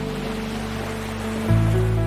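Slow ambient music of held chords with a sustained bass, the chord changing about one and a half seconds in, over a soft wash of surf.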